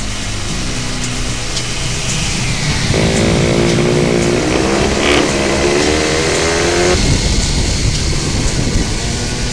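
O.S. .46 LA two-stroke glow engine on a Goldberg Pitts model biplane, running at idle, revved up about three seconds in with its pitch wavering, and dropped back to idle about four seconds later.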